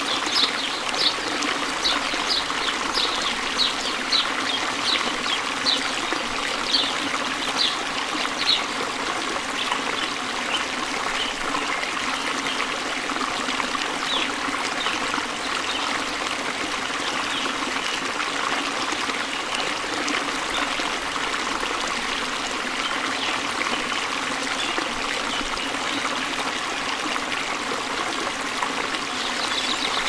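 Cascading waterfall pouring over rocks in a steady rush of water. Over it a bird chirps in a quick series, about two short chirps a second, for roughly the first nine seconds, with fainter, scattered chirps after that.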